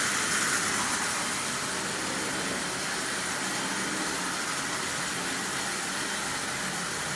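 Marx Commodore Vanderbilt toy electric locomotive running steadily on its track: an even, continuous whir and rattle of its motor and wheels with a faint steady hum, running smoothly.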